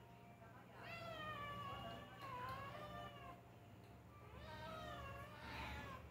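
A cat meowing twice in long, drawn-out calls whose pitch bends up and down. The first starts about a second in and lasts nearly three seconds; the second comes near the end.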